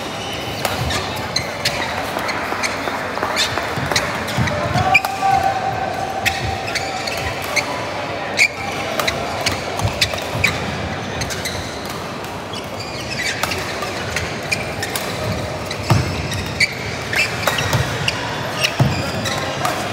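Badminton doubles rally: rackets striking the shuttlecock again and again in short sharp cracks, with players' footfalls on the court.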